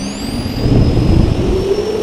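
Cinematic logo sound effect: a low rumble that swells about a second in, with engine-like tones and high rising whines layered over it.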